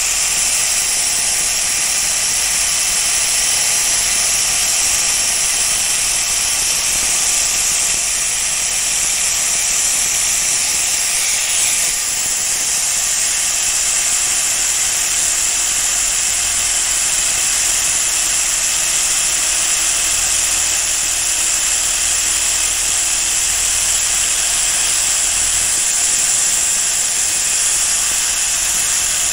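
Steady abrasive hiss of a powered sanding tool working the steel blade of a pair of tailor's shears, grinding away pitting and discoloration. It runs on evenly, with a brief change in the sound just before the halfway point.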